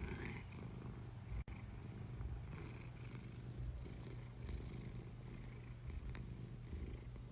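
A cat purring, low and steady, cutting out for an instant about a second and a half in.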